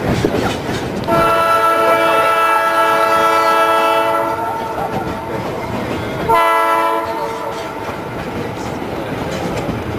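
A train's whistle blows one long blast of about three seconds, then a short blast about two seconds later, over the rumble and clatter of the moving train.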